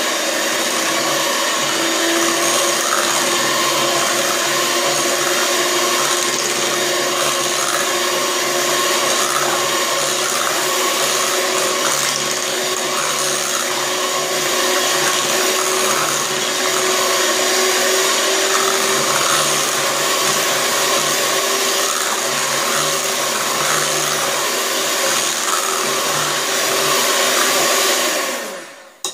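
Electric hand mixer running steadily at one speed, its twin beaters whipping a runny cheesecake batter in a glass bowl. The motor winds down and stops near the end.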